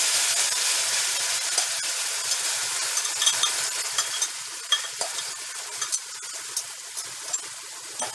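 Texturized vegetable protein frying in coconut oil in a hot pot, sizzling and crackling as it is stirred; the sizzle fades gradually, leaving scattered pops and clicks.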